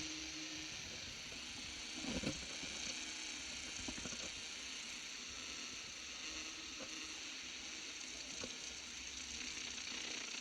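Static from a simple direct-amplification radio receiver: a steady hiss with a few short crackles, the strongest about two seconds in.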